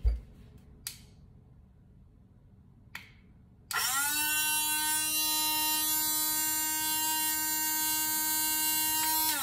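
Motor of a small battery-powered portable blender bottle starting about a third of the way in. It spins up with a short rise in pitch, then runs at a steady whirring hum for about five seconds. Before it there is a knock at the very start and two faint clicks.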